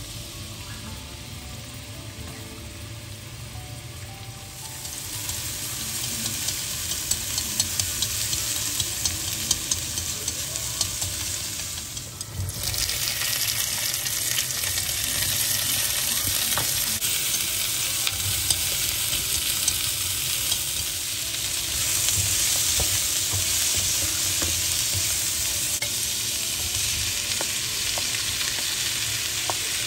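Food sizzling as it is stir-fried in a hot pan, with scattered scrapes and taps of the utensil. The sizzle grows louder about five seconds in, breaks off briefly near the middle, then goes on.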